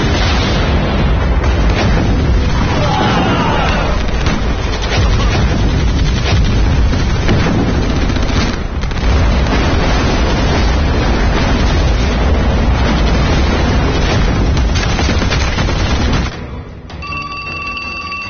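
Artillery barrage: shells bursting one after another in a loud, continuous din for about sixteen seconds. It cuts off abruptly, and near the end an old desk telephone rings.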